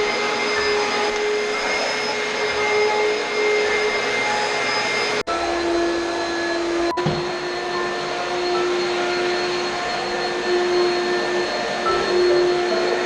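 Oreck upright vacuum cleaner running steadily, a constant motor whine over the rush of air. After a brief break about five seconds in, the whine comes back at a lower pitch.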